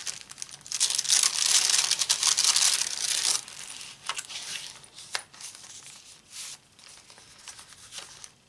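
Paper rustling and crinkling as a handmade journal's pages and tucked-in paper pieces are handled. The rustle is loudest for the first few seconds, then gives way to lighter rustles and a few soft taps.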